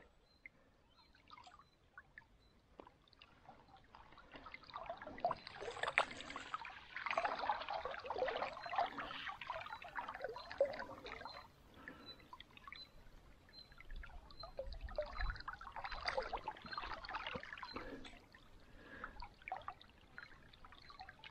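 Water splashing and trickling in irregular spells as a hooked chub thrashes at the surface and a landing net is worked through the water to land it.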